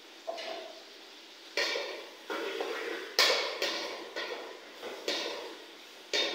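A metal spoon scraping and clanking against the inside of a metal cooking pot as food is stirred: about seven irregular strokes, roughly one a second, each sharp at the start and fading quickly.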